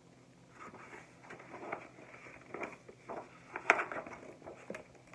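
Irregular rustling and light taps close by, with one sharper knock about three and a half seconds in: handling noise.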